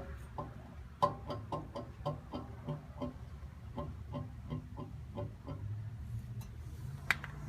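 Toyota FJ Cruiser wheel bearing clicking rhythmically, about four sharp ringing clicks a second over a steady low rumble, which the owner takes for a bad wheel bearing. The clicks stop about five seconds in, and a single louder click comes near the end.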